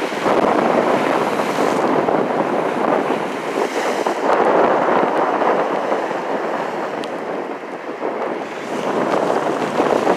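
Choppy, wind-driven lake waves washing and splashing over a rock edge onto a flooded walkway, swelling and easing every few seconds, with wind buffeting the microphone.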